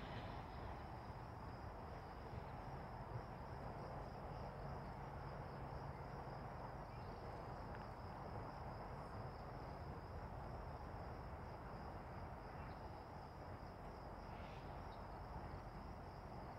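A steady high-pitched insect trill, pulsing evenly, over a faint low rumble.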